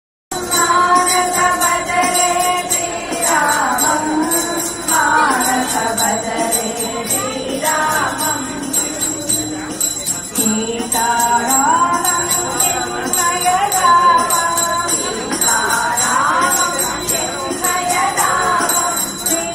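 Temple aarti: a devotional song sung to a melody, with a bell ringing rapidly and continuously beneath it.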